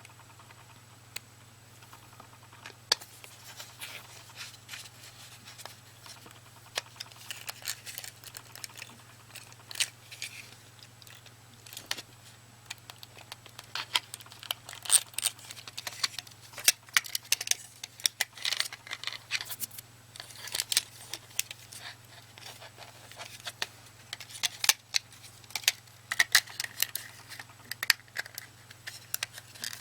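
Plastic parts of a Logitech cordless optical mouse being handled and fitted together by hand: irregular small clicks and taps, some in quick clusters, over a low steady hum.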